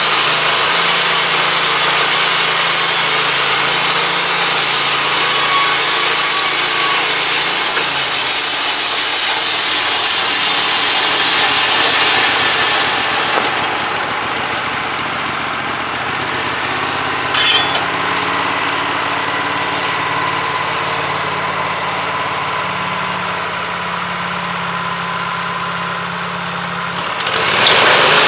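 Wood-Mizer LT15 Go bandsaw mill cutting through a log: the band blade hisses loudly over the running engine for about the first half. Then the cut stops and the engine runs on more quietly, with a short sharp noise partway through. The loud cutting sound starts again near the end.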